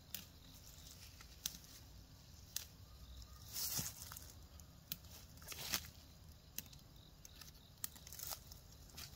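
Scattered rustling of leaves and sharp snaps of plant stems, with a couple of louder rustles about four and six seconds in.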